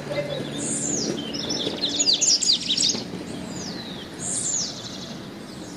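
Several birds calling: repeated high whistled notes that fall in pitch, with a dense flurry of chirps about two seconds in, the loudest part.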